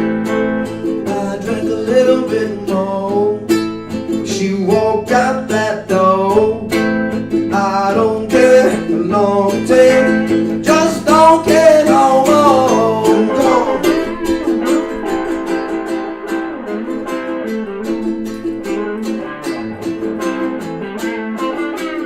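Live acoustic guitar music, plucked and strummed, with a singing voice over it for roughly the first half. Past the middle the guitar plays on more thinly, its low bass dropping out.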